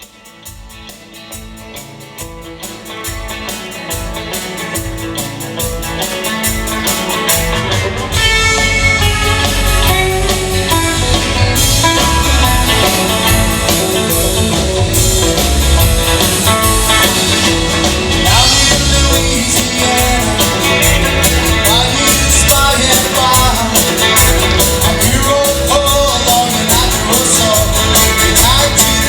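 A song with guitar and singing and a steady beat, fading in over the first several seconds and then playing at full level.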